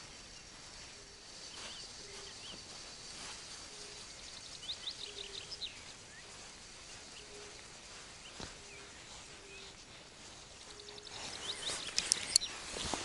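Quiet riverside ambience with small birds calling: short high chirps and a fast trill around the middle, then a louder run of chirps with a few sharp clicks near the end.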